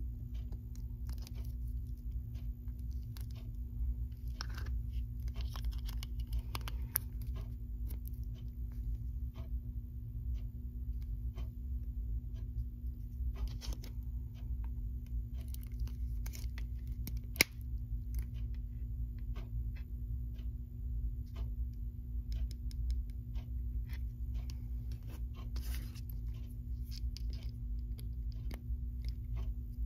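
Scattered small plastic clicks and taps as an Advanced Bionics Neptune cochlear-implant sound processor, its AAA battery, controller and cable are handled and fitted together, with one sharper click a little past halfway. A steady low hum runs underneath.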